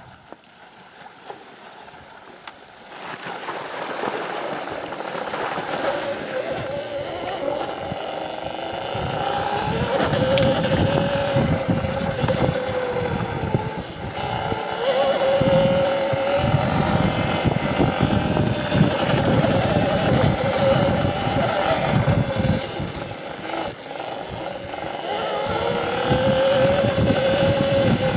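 CZEM Drill One electric dirt bike riding off-road: the motor's whine rises and falls with the throttle over wind and tyre noise. It picks up about three seconds in.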